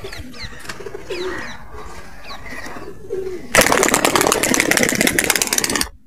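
Domestic pigeons cooing, several low rising-and-falling coos in a row. About three and a half seconds in, a loud, rapid rustling noise takes over for about two seconds, then cuts off.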